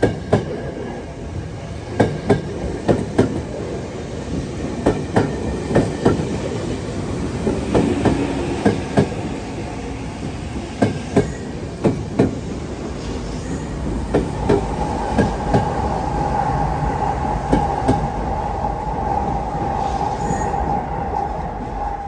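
Electric commuter train rolling slowly past at close range, its wheels clacking over rail joints many times. About two-thirds of the way in, a steady wheel squeal begins and holds to the end.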